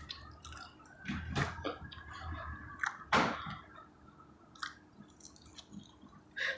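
Chewing pizza close to the microphone: wet mouth smacks and small clicks, with a sharper smack about three seconds in.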